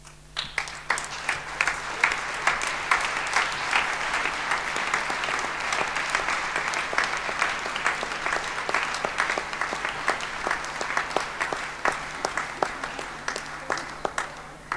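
Audience applauding: dense clapping that starts about half a second in, holds steady, and stops near the end.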